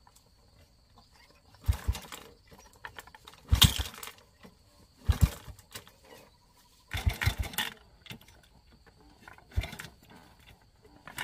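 Small motorbike loaded with banana bunches, its engine revved in five short bursts a second or two apart as it is worked down a steep, overgrown slope.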